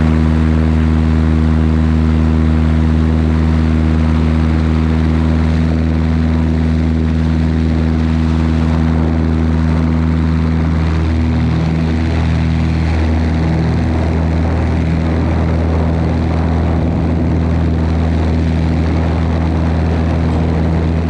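Cessna 170's piston engine and propeller running steadily at constant power, one unchanging low, even tone.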